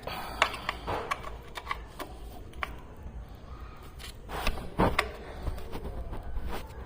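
Irregular metallic clicks and clinks of hand tools working on the engine's clutch cover bolts, with a few louder knocks about half a second in and again around four and a half to five seconds in.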